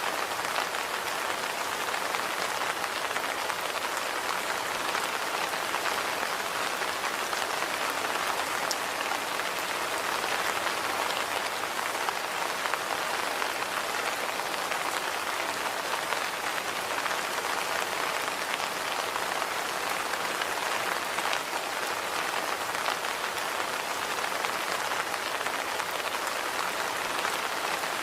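Steady rain falling and pattering on surfaces, an even hiss dotted with fine drop ticks.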